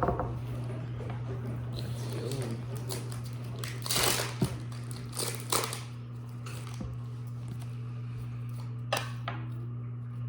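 A few short crinkling rustles of a foil booster-pack wrapper and trading cards being handled, about four, five and nine seconds in, over a steady low electrical hum.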